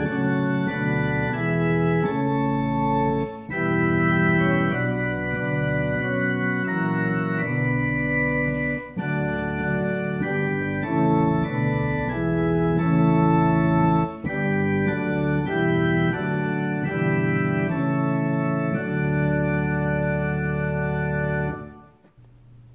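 Organ music: sustained chords that change every second or so, stopping shortly before the end.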